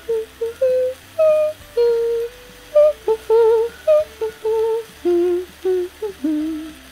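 Someone humming a cheerful tune in short, separate notes that step up and down, stopping near the end.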